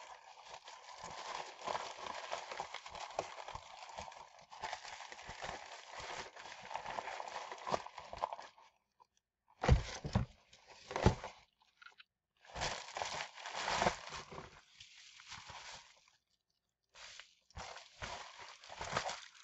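Plastic shipping packaging crinkling and rustling as it is handled and folded, with a couple of dull bumps about ten seconds in.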